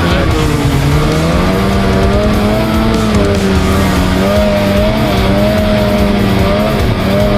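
Snowmobile engine running under throttle while riding, its pitch rising and falling as the throttle changes.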